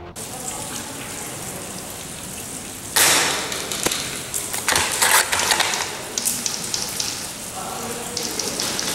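Steady rain hiss, with a sudden louder rush about three seconds in and a cluster of crackles around five seconds.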